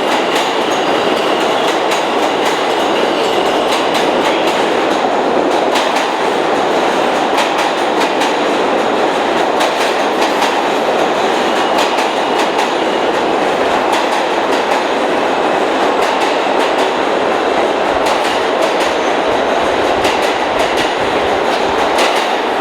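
New York City subway train running on the track, a steady loud rumble with many sharp clicks of the wheels over rail joints.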